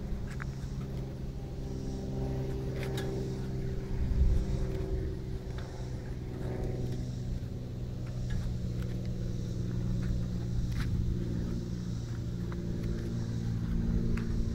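Pontiac Firebird Formula 350's 350 V8 idling steadily, growing a little louder near the end as the rear of the car and its exhaust come closer.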